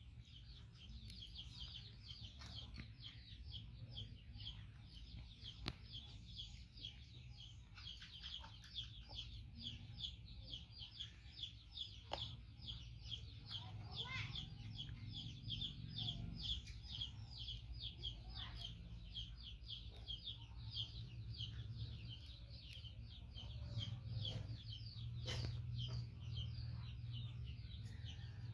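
Outdoor ambience: a steady, rapid high-pitched chirping, about five pulses a second, over a low rumble, with a few faint wavering calls around the middle.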